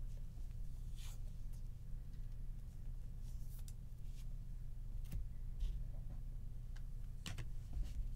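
Trading cards being handled on a table: a handful of brief rustles and slides as cards are picked up and moved, over a steady low hum.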